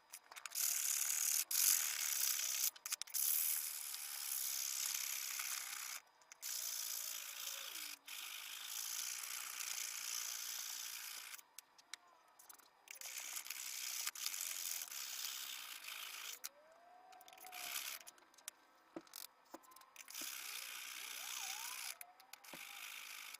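Lansky sharpening hone being worked along the edge of a Leatherman's S30V steel blade, a steady scraping hiss in long stretches of strokes broken by short pauses.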